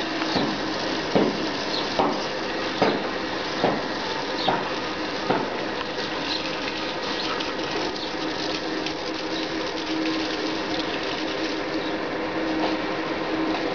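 Water running from a garden hose onto plants and soil, a steady splashing hiss. Sharp clicks come about once a second for the first five or so seconds, then stop.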